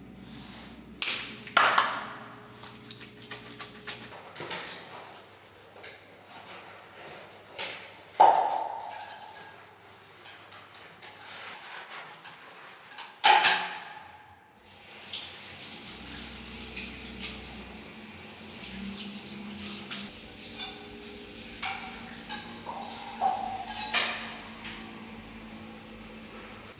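Irregular knocks and clinks of objects being handled and set down. A few louder strikes ring briefly, about 8 and 13 seconds in.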